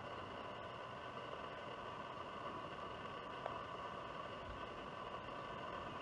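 Steady faint hiss of background noise, with a single small click about three and a half seconds in.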